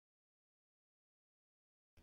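Digital silence.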